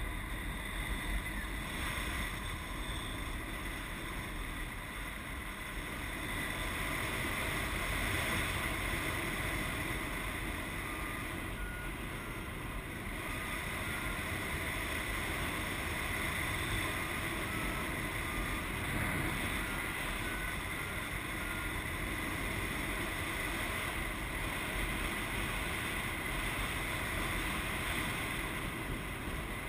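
Steady rush of airflow over a paraglider's harness-mounted camera microphone in flight, with no engine.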